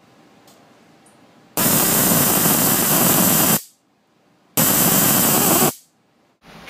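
High-voltage arcs from an Arduino-driven TV flyback transformer driver, sparking at the output across a string of series high-voltage ceramic capacitors. Two loud bursts of arcing: the first lasts about two seconds, starting about a second and a half in, and a shorter one of about a second follows after a short gap.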